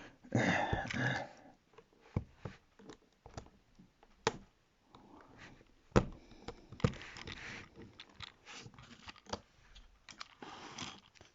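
Small irregular clicks and light scraping from a tablet's internal connectors and parts being pried and unclipped by hand, with a few sharper clicks standing out.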